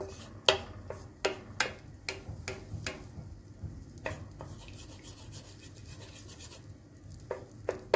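Wooden spoon scraping and knocking against the bottom of a pan while stirring butter as it melts. There is a run of short scrapes, a quieter stretch past the middle, then two more strokes near the end.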